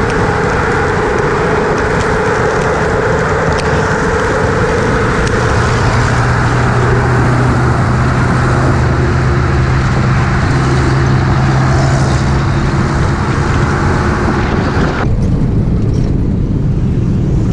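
Engine and road noise of a moving bus in traffic, with a steady rush of wind and tyre noise. A low engine hum comes through in the middle, and the high hiss cuts off suddenly near the end.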